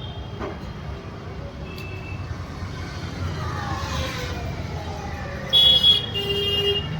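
Road traffic rumbling steadily, with a passing vehicle's pitch falling in the middle and a vehicle horn honking twice near the end, the loudest sound.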